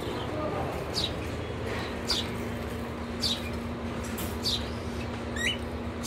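Caged pet birds, cockatiels and budgerigars, giving short high chirps that fall in pitch, about once a second, one near the end rising instead.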